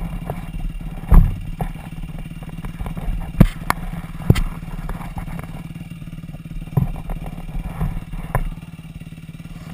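Dirt bike engine idling steadily, with several sharp knocks and clatter from hands handling the camera close to the microphone. The engine sound drops away sharply about eight and a half seconds in.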